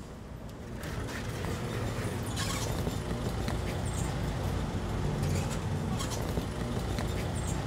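Road traffic: a steady low rumble of passing vehicles that swells about a second in, with a few faint clicks over it.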